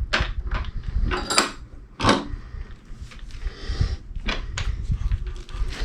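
Irregular sharp clicks and knocks of a doorknob and tools being handled and worked on a workbench, over a low rumble.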